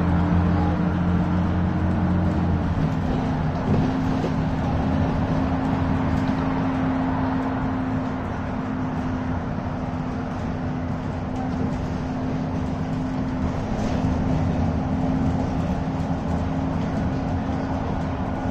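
Steady drone of a bus's engine and tyres heard from inside the bus as it cruises along an open road. The engine's low hum shifts in pitch about three seconds in, then holds steady.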